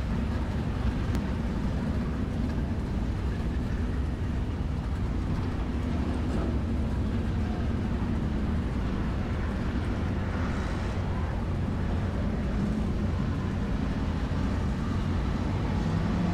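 Race car engines running steadily on the track, an even low rumble that holds its level.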